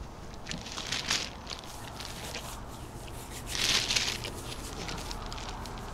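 Footsteps and rustling with scattered soft clicks, and two short hissing rustles, the second and louder one about three and a half seconds in.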